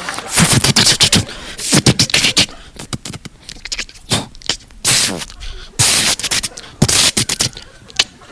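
A man making vocal sound effects into a handheld microphone: a run of short, sharp hissing bursts and mouth clicks, like beatboxing, with quieter pauses between them.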